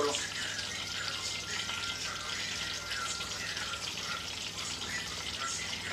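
Aubergine slices shallow-frying in hot oil in a stainless steel pan: a steady sizzle with fine crackling.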